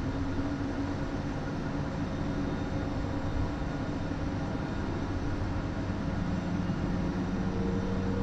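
Business jet turbofan engines heard inside the cockpit: one engine already at idle while the other spools up just after light-off during its start. There is a steady whine and rumble, with the tones strengthening and rising slightly near the end.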